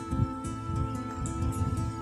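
Soft background music with long held notes and a hint of plucked strings, over a low, uneven rumble.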